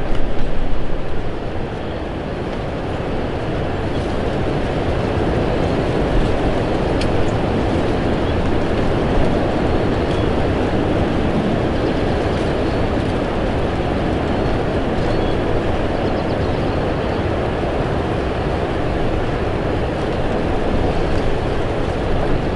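Strong wind buffeting the microphone: a steady, low rushing noise, a little louder for the first second or so.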